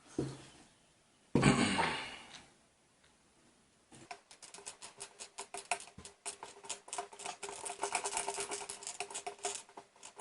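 Hands working the small parts of a graphics-card cooler. There is a single clatter about a second and a half in, then from about four seconds on a long run of rapid small clicks and ticks over a faint steady hum.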